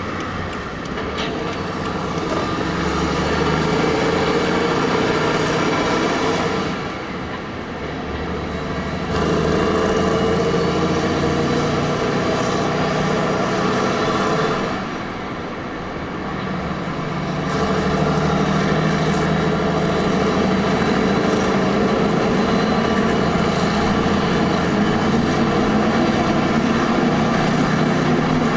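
Heavy-haulage truck's diesel engine pulling under load. It climbs in pitch, then dips briefly about seven seconds in and again about halfway through, as with gear changes, and then pulls steadily on.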